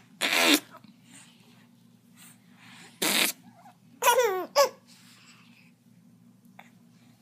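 A baby laughing in a few short bursts. The loudest is a squealing laugh that falls in pitch about four seconds in, after a breathy burst just before it.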